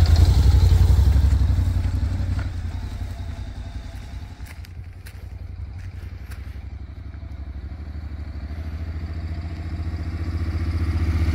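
Honda NC700X parallel-twin motorcycle engine running at low revs, fading away over the first few seconds, then growing louder again near the end.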